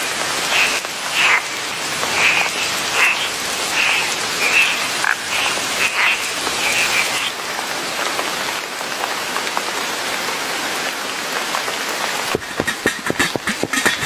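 Steady rain falling, with frogs croaking over and over during the first seven seconds or so. About twelve seconds in, a rapid rattling clatter starts over the rain.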